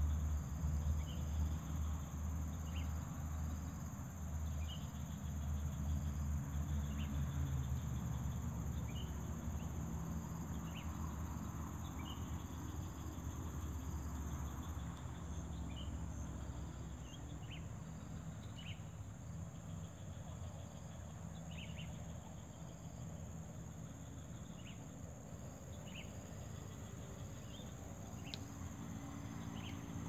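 Insects droning steadily at a high pitch, with short chirps recurring every second or two and a low rumble that is strongest in the first several seconds.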